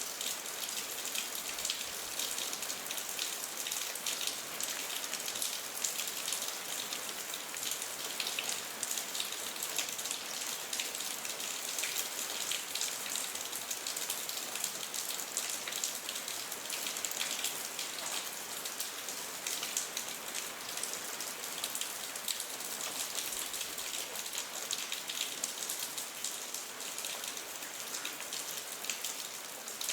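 Steady rain: an even, high hiss thick with the fine ticks of individual drops.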